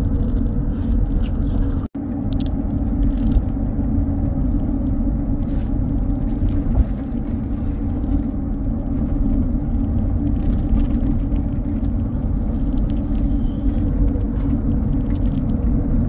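Steady low rumble of a car driving on the road, engine and tyre noise heard from inside the car, cutting out for an instant about two seconds in.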